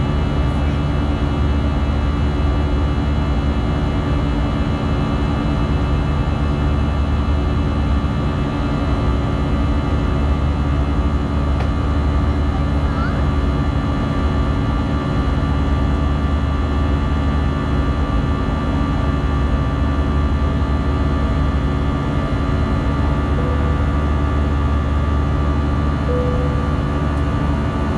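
Cabin noise of an Airbus A320-family airliner climbing under thrust: a steady drone from its CFM56 turbofans and the airflow, with several steady whining tones.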